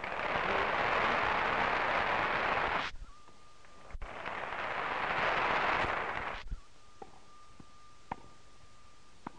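Crowd of spectators applauding in two bursts of about two and a half seconds each. The first burst cuts off abruptly about three seconds in, and the second fades out past the middle. Between and after them are a faint steady whine and a few sharp clicks from the old film soundtrack.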